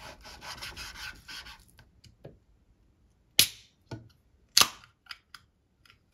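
A knife rasping as it saws through raw pork ribs on a wooden cutting board. Then a ring-pull on a can of Coca-Cola is opened: two sharp cracks a little over a second apart, with a few small clicks.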